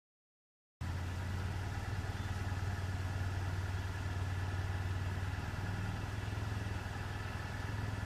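Steady low hum with a faint higher steady tone over it, starting suddenly about a second in and cutting off at the end.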